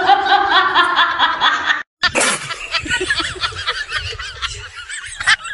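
A person laughing in rapid pulses for nearly two seconds, cut off abruptly. After a short gap, a quieter run of snickering laughter follows.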